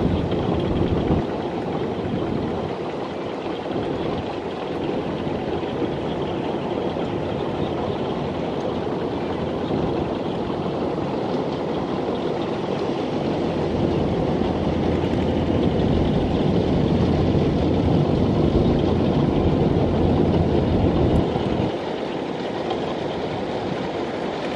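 Two-wheel walking tractor's single-cylinder diesel engine running under load as it hauls a loaded trailer through deep mud. It gets louder for several seconds from about halfway, then drops back shortly before the end.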